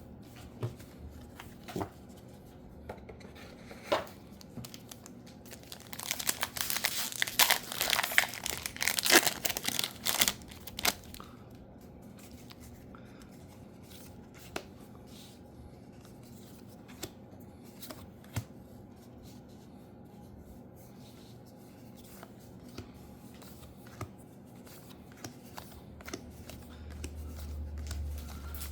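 A trading card booster pack wrapper is torn open, crinkling loudly for about five seconds starting about six seconds in. Before and after it come soft taps and clicks of the cards being handled, and another crinkle starts near the end.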